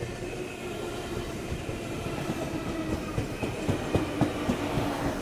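Sydney Trains K-set double-deck electric train pulling into the platform: its wheels clack over rail joints with a steady whine over them, and the clacking grows louder and more frequent from about three seconds in.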